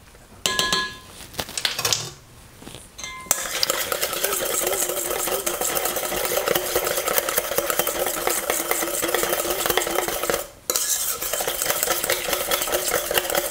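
Wire whisk beating egg and coconut-flour batter in a stainless steel mixing bowl: a fast, steady metallic scraping clatter that starts about three seconds in and stops briefly near the end before going on. A few ringing metal clinks against the bowl come first.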